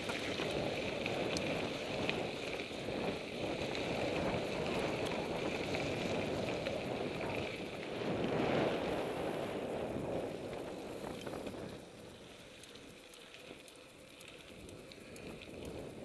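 Mountain bike riding with wind rushing over the microphone, tyres rolling and small rattles from the bike; it goes quieter for a few seconds after about twelve seconds in.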